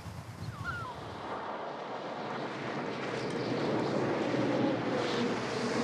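Storm wind: a gusting, howling wind noise that swells and grows steadily louder over several seconds. A bird calls briefly at the start, before the wind builds.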